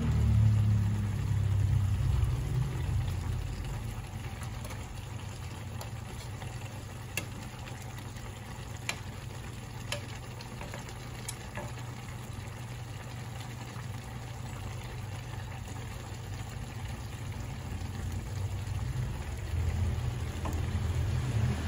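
Tinola (chicken soup) broth simmering in a pan, a steady low rumble, with a few light clicks of a metal spoon against the pan about halfway through.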